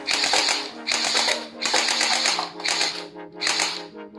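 Electric gel-ball toy rifle (SCAR-L replica) firing gel water beads, about five short bursts of rapid clicking a little under a second apart, over background music.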